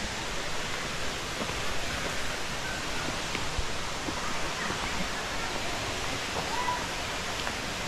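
Steady rushing noise of a waterfall.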